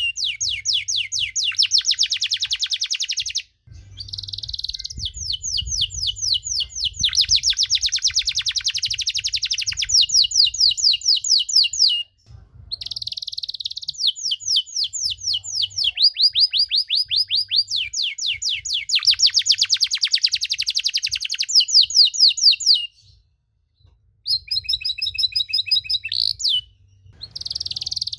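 Domestic canary singing a long, continuous song of fast rolling trills and rapidly repeated chirp phrases, breaking off only briefly about three and a half, twelve and twenty-three seconds in.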